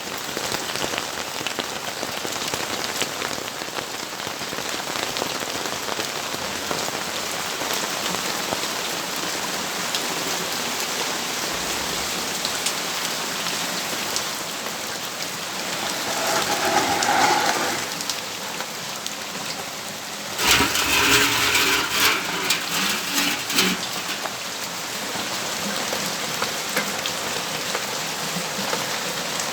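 Steady rainfall, an even hiss with scattered drop ticks. About two-thirds of the way through, a louder, rougher spell of a few seconds rises over the rain, with a smaller swell a few seconds before it.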